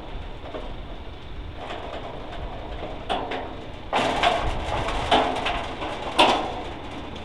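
Hand-operated railway level-crossing gates being swung shut across the road, rattling and clanking, with three louder clanks about a second apart in the second half, the last the loudest.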